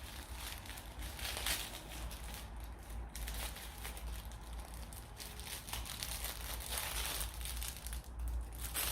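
Packaging crinkling and rustling in irregular bursts as it is handled and opened by hand.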